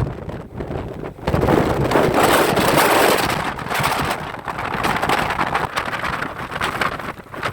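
Storm wind buffeting the microphone over rough sea surf, a steady rushing noise that swells into a louder surge about a second in and eases after a couple of seconds.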